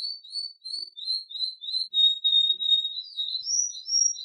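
Domestic canary singing: a run of short rising chirped notes, about three a second, then a brief steady high trill about halfway through, and a few higher notes near the end.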